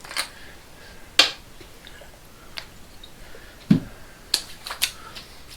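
Aftershave lotion being handled and applied: a handful of sharp, separate clicks and slaps from the bottle and from hands patting the face, with three quick ones close together near the end.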